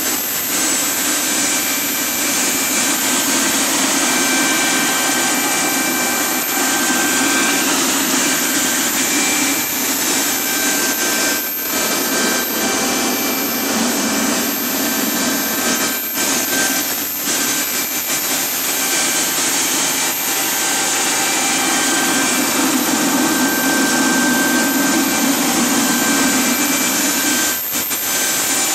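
Rover/Lucas gas turbine ground power unit running steadily at its governed speed: a constant turbine roar with high, steady whining tones over it.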